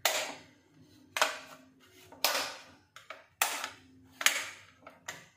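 Small screwdriver prying the glued plastic diffuser cover off an LED T-bulb's body: about five sharp cracking scrapes, roughly one a second, each fading quickly, as the glue along the seam gives way.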